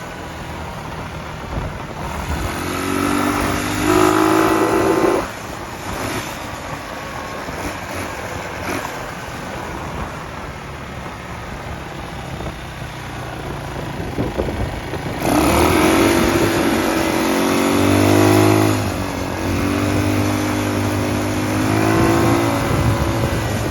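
Chinese quad's GY6 four-stroke single-cylinder engine revving as the quad is ridden, its pitch climbing and dropping in one spell of acceleration about three seconds in and a longer one from about fifteen seconds to near the end, running lower between them.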